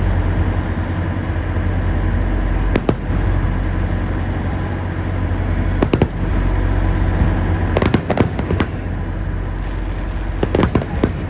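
Fireworks going off: scattered sharp bangs, single at first, then several in quick succession towards the end, over a steady low rumble.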